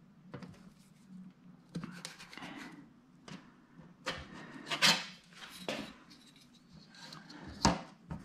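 Thin 6061 aluminum sheet panel being shifted and rubbed into place against the frame, with several sharp clicks and knocks as clecos are set in its holes.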